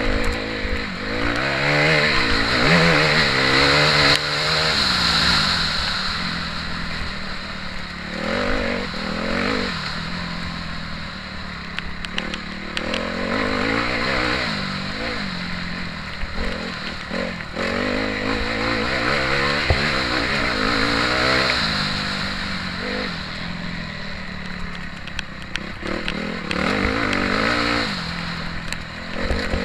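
Motocross bike engine heard up close from the rider's own bike, revving up and dropping back again and again as it accelerates, shifts and slows through the turns of a dirt track.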